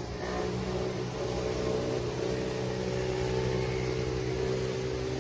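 An engine running at a steady pitch, a low even hum that grows a little louder right at the start.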